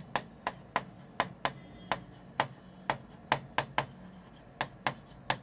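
A pen or stylus tapping and clicking against the screen of an interactive writing board while a hand writes, in a string of sharp, irregular clicks several times a second.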